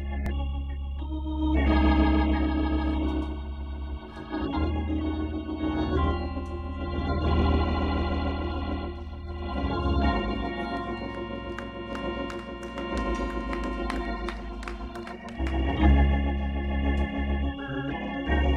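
Church organ playing held chords over sustained deep bass notes, the chords changing every few seconds. Light metallic ticks, like cymbal taps from the drum kit, run over it through the middle and later part.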